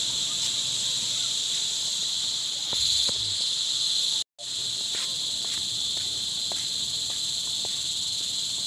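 Night insect chorus, a steady high-pitched chirring that cuts out for a moment about halfway through, with a few faint clicks.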